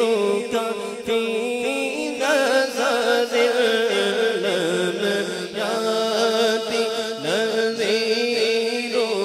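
Male naat reciter singing a long, ornamented vocal line into a microphone, the pitch sliding up and down, over a steady drone held underneath.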